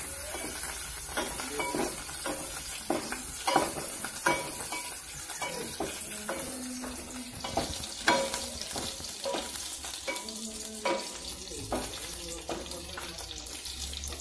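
Wooden spatula stirring and scraping in an aluminium pot of curry leaves, shallots, garlic and ginger frying in oil, with a steady sizzle and a short scrape or knock against the pot about once a second.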